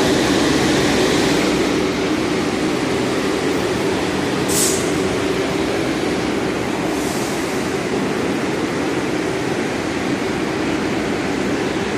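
An R62A subway train standing at the platform with its doors open gives off a steady hum and rush from its running equipment. Two short hisses come a few seconds apart.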